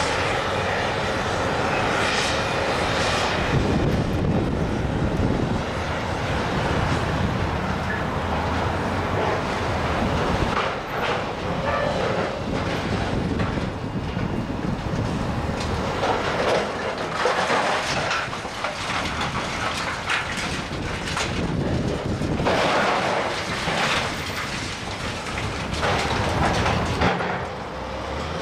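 Building demolition work: heavy machinery running, with irregular surges of crunching and scraping debris.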